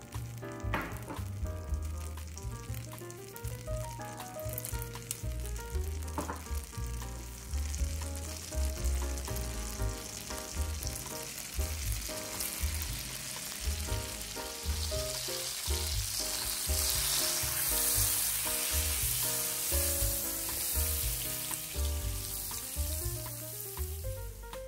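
Butter sizzling and frying with whole spices in an aluminium pan, getting louder from about halfway as the butter starts to foam, with some stirring near the end. Background music plays throughout.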